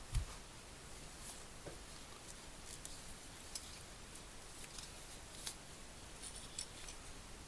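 Hand work on a small object at a bench: one soft knock just after the start, then sparse light clicks, ticks and short scrapes, with a small cluster near the end.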